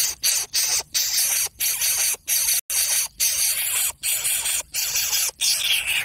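Greater coucal nestling hissing with its mouth agape, a harsh repeated hiss in short bursts about two a second with brief breaks between them: the defensive hiss of a disturbed coucal chick.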